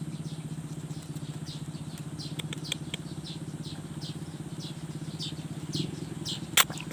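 Steady, finely pulsing low drone of an idling engine, with short high falling chirps repeating about twice a second above it. There is a sharp knock near the end.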